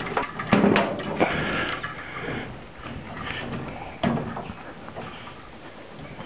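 Irregular clicks, knocks and rustling from handling and moving about, louder in the first couple of seconds and quieter after, with a sharp knock about four seconds in.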